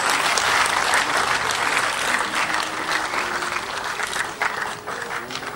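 Audience clapping: dense applause that is loudest at the start and thins out toward the end.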